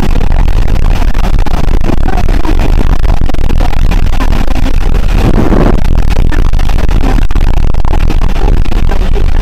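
Heavy rain beating on a car's windshield and roof, with road noise from driving on the flooded road, heard from inside the car; loud and steady.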